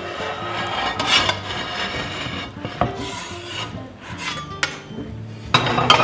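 Metal spatula and a deep-dish pizza pan scraping against each other and against a wooden cutting board in several short strokes as the pan is worked free of the pizza.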